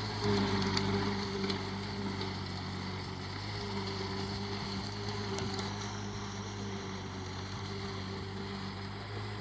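Kubota MU4501 45 hp tractor's diesel engine running steadily while puddling a flooded paddy field.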